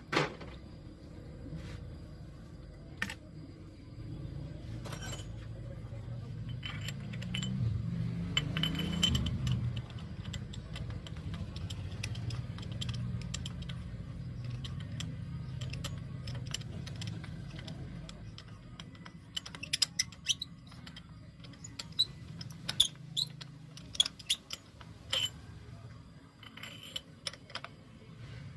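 Metal hand tools clinking and clicking irregularly during spark plug work, in a cluster of sharp clicks near the end, over a steady low hum.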